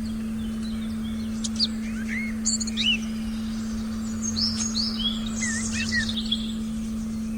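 Forest birds chirping and whistling, a run of short, quick calls from about a second and a half in until near the end, over a steady low electronic tone that holds unchanged throughout.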